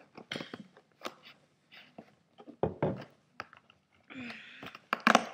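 Scissors cutting packing tape on a cardboard box, with irregular snips, scrapes and knocks as the box is handled, and a louder knock near the end.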